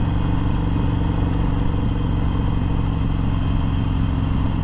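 Harley-Davidson Sportster Forty-Eight's air-cooled V-twin engine running at a steady cruising speed, heard from the rider's seat, its pitch holding level.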